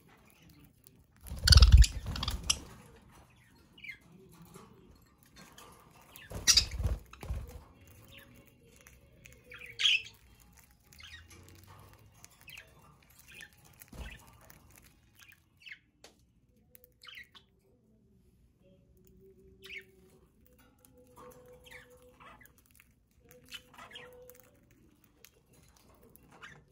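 Pet budgies chirping and squawking in short scattered calls, with two louder bursts of rustling or fluttering about two and seven seconds in.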